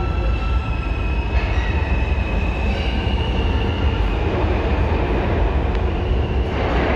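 New York City subway trains at an underground station: a steady low hum with high whining tones from the train equipment, which step up in pitch about a second and a half in and again near three seconds.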